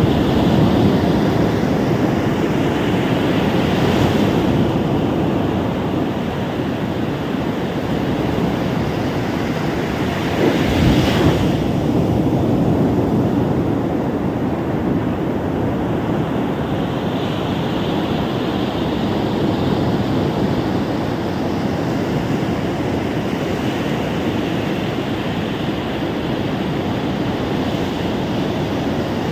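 Ocean surf breaking on a sandy shore, a steady wash that swells and eases, with wind buffeting the microphone and brief gusts about four and eleven seconds in.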